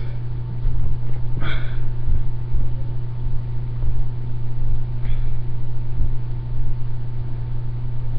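Steady low hum, with faint handling noises about a second and a half in and again about five seconds in.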